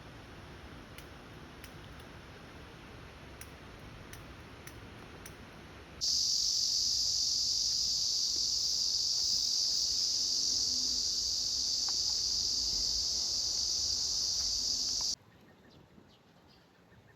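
A cicada's loud, steady high-pitched buzz cuts in about six seconds in, holds unbroken for about nine seconds, then cuts off suddenly. Before it there is only faint outdoor background with a few light ticks.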